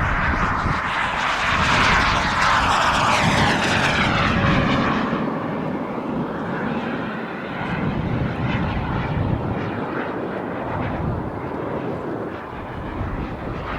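Hummingbird RC model jet's small gas turbine whining and rushing as the jet makes a pass, loudest about two seconds in and dropping in pitch as it goes by, then running on more distantly. Wind buffets the microphone.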